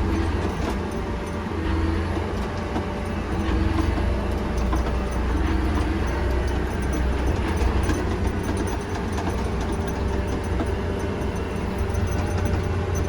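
Heavy vehicle running steadily: a continuous low engine drone with a faint whine above it.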